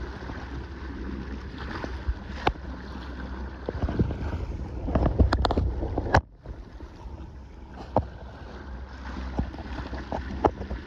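Kayak on open water: water sloshing against the hull, with wind rumbling on the microphone and scattered knocks and clicks. The sound drops away suddenly about six seconds in, then the same wash and knocks go on more quietly.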